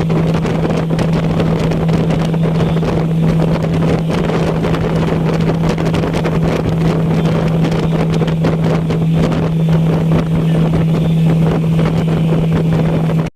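Motorboat engine running steadily with the boat under way, a constant low hum over the rush of wind and water, with wind buffeting the microphone.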